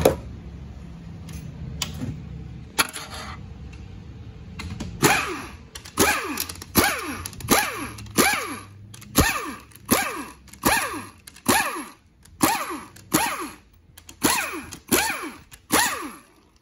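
Pneumatic air ratchet backing out the valve body bolts on a 4L80E transmission, after a few clicks at first. From about five seconds in it gives about fifteen short trigger bursts, roughly one every 0.7 seconds, each winding down in pitch as the motor spins down.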